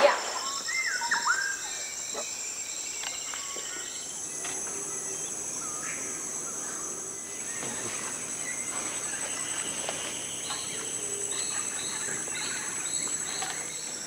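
Tropical rainforest ambience: a steady high-pitched insect drone, joined by a second, higher one about four seconds in, with scattered bird calls, including a swooping call about a second in and a run of short repeated notes near the end.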